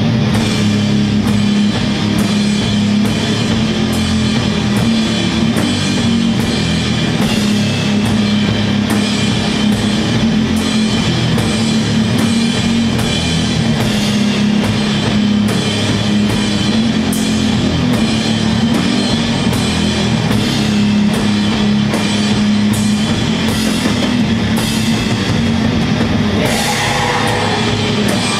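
Doom metal band playing live: heavy guitars and bass holding a low, dense wall of sound over drums, with cymbal hits a little under a second apart keeping a steady beat.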